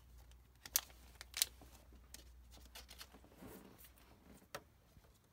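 Quiet handling of trading cards and plastic card sleeves: a few short, sharp clicks and rustles, the two loudest under a second apart about a second in.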